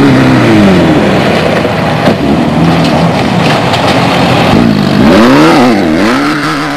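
Off-road desert race vehicle's engine running hard, its pitch rising and falling as the throttle is worked, with quick revs up and down about five seconds in.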